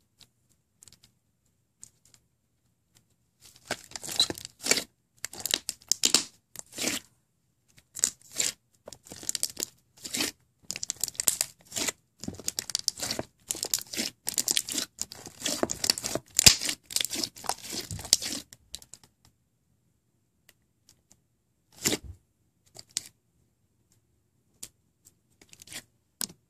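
A large mass of slime being stretched and squished by hand, making sticky crackles and pops in quick clusters. These start a few seconds in, fall off after about two-thirds of the way through, and are followed by a couple of lone pops near the end.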